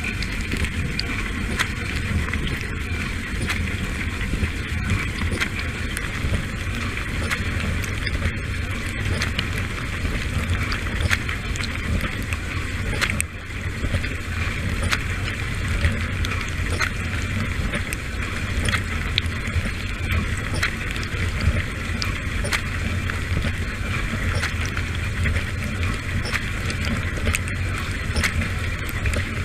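Dishwasher in its wash cycle, heard from inside the tub: water spraying and splashing steadily over the low, constant hum of the wash pump, with many small ticks of drops striking. The sound dips briefly about halfway through.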